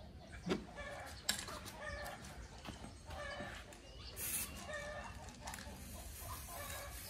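Chickens clucking in short repeated calls, with two sharp clicks in the first second and a half.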